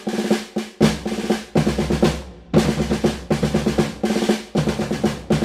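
Background music with a fast, driving drum beat, snare hits repeating over a steady held backing tone.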